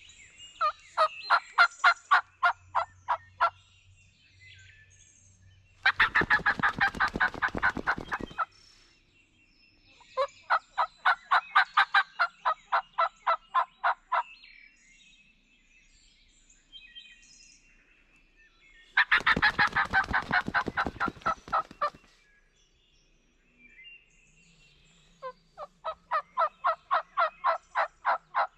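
A turkey call worked to imitate a hen, sounding runs of about a dozen evenly spaced yelps three times, with two longer, denser rattling runs of about two seconds in between, meant to draw a gobble from a tom.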